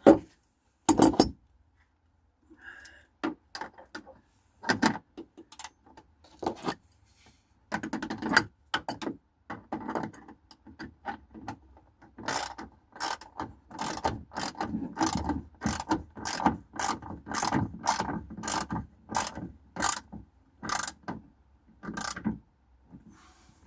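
Ratchet spanner tightening the earthing-cable bolt onto the van chassis, its pawl clicking. Scattered clicks at first, then a steady run of strokes at about two a second through the second half, stopping near the end.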